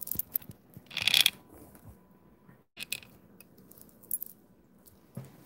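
Handling noise from a phone camera being repositioned: fingers and a sweater sleeve rubbing and knocking on the phone close to its microphone, with a loud scrape about a second in, another shorter one near the middle, and scattered small clicks.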